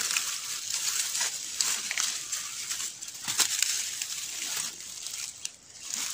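Dry bamboo leaves and twigs crackling and rustling underfoot and under hand as someone pushes through thick leaf litter: an irregular string of crisp crunches and snaps.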